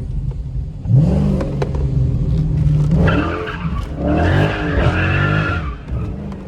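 Dodge Charger Scat Pack's 392 (6.4-litre) HEMI V8 revving hard as the car is slid on a wet road: the engine pitch climbs about a second in, then from about three seconds in the tyres squeal and skid under a wavering rev before it eases off near the end.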